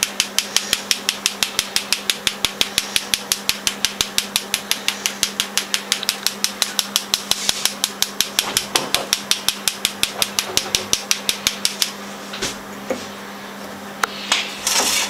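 A spoon tapping rapidly on a small metal mesh sieve, about five sharp taps a second, sifting icing sugar over fried rosquetes in a frying pan. The tapping stops about twelve seconds in, and a few scattered knocks follow near the end.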